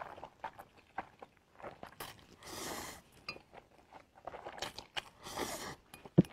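A man eating spicy noodles close to the microphone: wet chewing and mouth clicks, with two longer slurps, one about two and a half seconds in and another about five seconds in.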